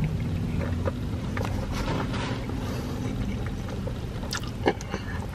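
Wet eating sounds of a person sucking in strings of melted mozzarella from deep-dish pizza and chewing: a slurp, then scattered smacks and clicks, with a sharper smack near the end. Underneath runs the steady low hum of a car, heard inside the cabin.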